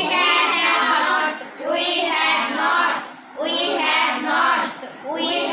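A class of children chanting a short English sentence in unison, in a sing-song rhythm repeated about four times.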